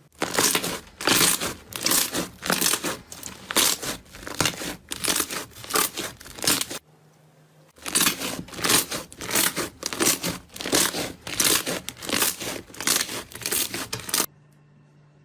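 Slime being squeezed and pressed by hand, giving crackling, crinkling squelches in a rhythm of about two strokes a second. It pauses for about a second midway and stops about a second before the end.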